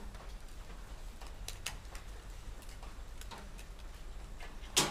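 Light, scattered clicks and ticks of thin aluminium pieces being handled and fitted together by hand, with one sharper click near the end.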